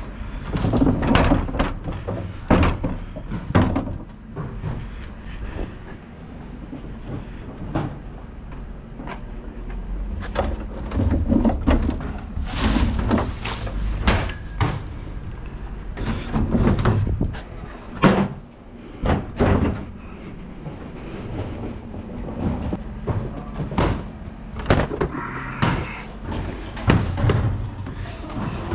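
Plastic wheelie bin being grabbed and wheeled along a concrete path: repeated sharp knocks and clatter of the lid and body over a continuous low rumble of its wheels on the paving.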